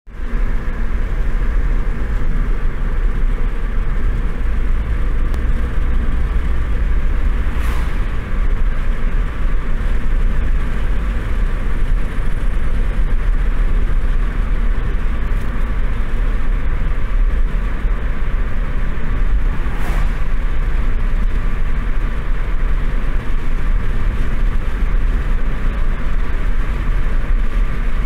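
Road noise heard from inside a moving car: a steady low rumble of engine and tyres, with two brief swishes standing out.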